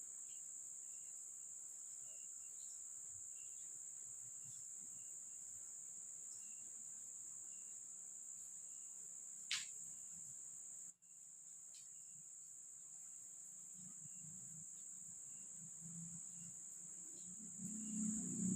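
Steady high-pitched chirring of insects, with one quick falling squeak about halfway through.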